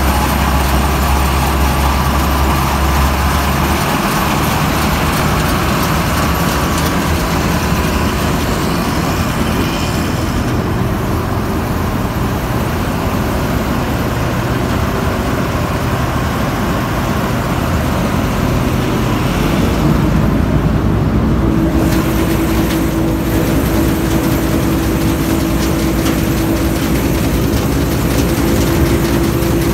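New Holland TC5.30 combine harvester's diesel engine and machinery running steadily under test. A deep low hum drops away about four seconds in, and a new steady hum joins about two-thirds of the way through.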